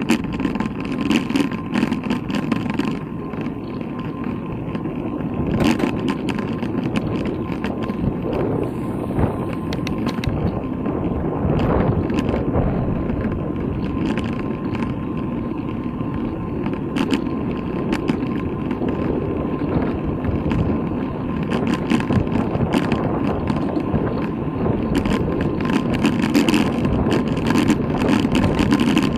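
Wind noise and road rumble picked up by a bicycle-mounted camera while riding, with frequent light rattling knocks as the bike goes over bumps and a faint steady whine underneath.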